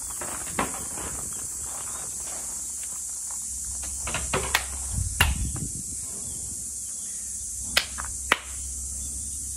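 Cicadas droning steadily, with sharp hand claps cutting through: a couple about halfway, and a clear pair of claps near the end, the two-clap kashiwade of a Shinto shrine prayer.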